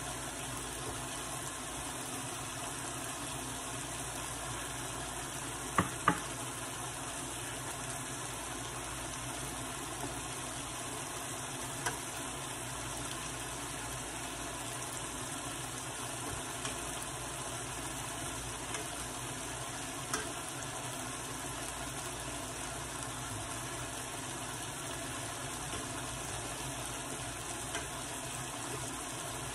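Sliced ripe plantains frying in oil in a skillet, a steady sizzle, with a few sharp clicks of a metal fork against the pan, the loudest two about six seconds in.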